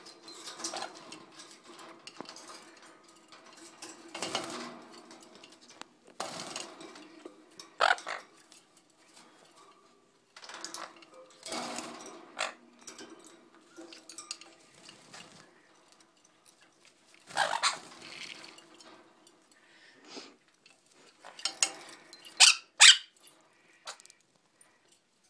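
Parrots, a sun conure among them, bathing in a shallow glass dish bird bath: repeated bursts of splashing as they flap and shake their wings in the water. Two short, sharp, loud sounds come close together near the end.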